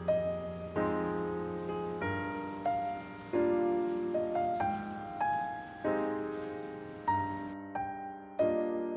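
Background music: a slow, gentle piano piece, chords and single notes struck and left to fade, a new one roughly every second.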